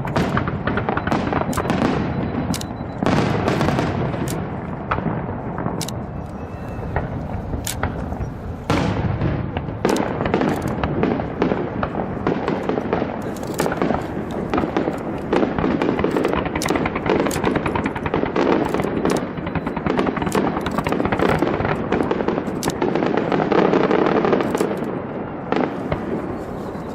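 Aerial fireworks bursting in a dense, continuous barrage of sharp bangs and crackles over a steady rumble, growing loudest near the end.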